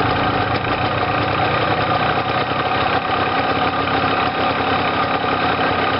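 Yamaha TY 125's air-cooled two-stroke single-cylinder engine idling steadily while warm, its idle set a little high, as the carburettor's mixture screw is tuned for the fastest idle at one and a quarter turns out.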